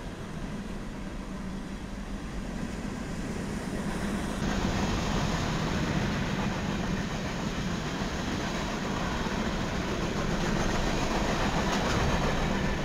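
Train rolling along the track: a steady rumble of wheels on rail. It grows somewhat louder about four seconds in and cuts off abruptly at the end.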